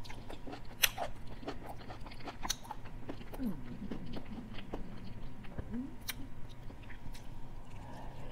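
Close-miked chewing of teriyaki chicken and sautéed okra, with many wet mouth clicks and smacks scattered through it.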